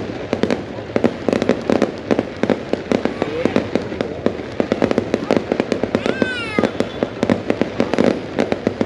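Fireworks going off in a rapid, continuous run of sharp cracks and pops, several a second. A short falling whistle cuts through about six seconds in.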